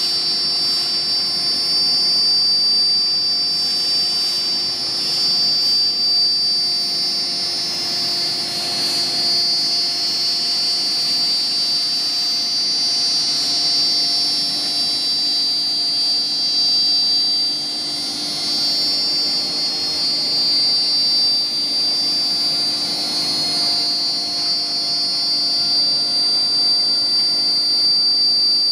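BMG 1325 CNC router running steadily, with a continuous high-pitched whine over a lower steady hum.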